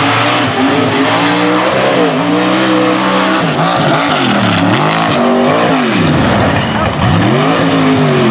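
Bad Frog mega truck's engine at full throttle down a dirt track, held high at first, then its pitch falling and climbing again several times as the revs drop and pick back up.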